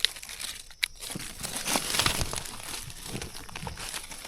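Dry leaf litter crackling and rustling underfoot and under hand, with two sharp snaps in the first second and a denser spell of crackling around the middle.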